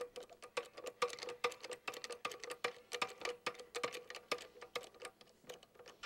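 Hydraulic panel lift being pumped by its handle: a quick run of light clicks and ticks, with a short squeak about twice a second.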